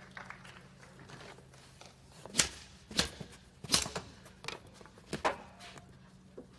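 Tennis racket being smashed: about six sharp cracks over some three seconds, the loudest two among the first few.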